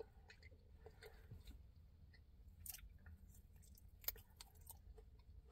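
Faint chewing of thick-cut bacon jerky, with scattered soft mouth clicks and one sharper click about four seconds in.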